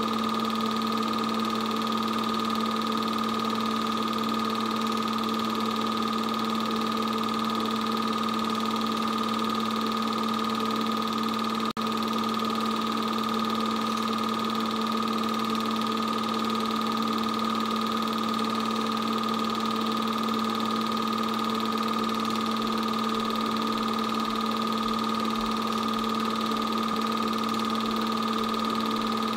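An 8mm film projector running: a steady mechanical hum with a constant whine, unchanging throughout. It drops out for an instant about twelve seconds in.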